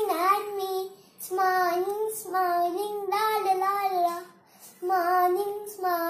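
A young boy singing a children's poem in a high, clear voice: four short sung phrases with brief breaths between them.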